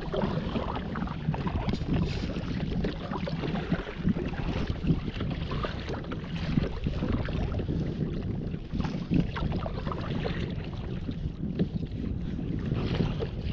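Double-bladed paddle dipping and splashing as a fishing kayak is paddled on open sea, with water washing along the hull and wind rumbling on the microphone.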